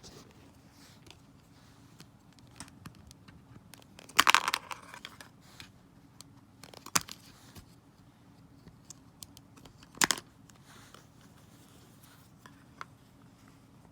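A plastic air-conditioner remote control being handled: scattered small plastic clicks, a sharp click about seven seconds in, and two louder crackling rustles about four seconds and ten seconds in.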